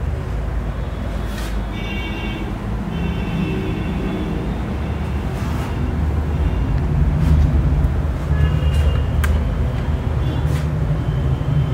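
Steady low rumble with a few short high-pitched tones, over the scrubbing of a duster wiping a whiteboard clean and a few light taps.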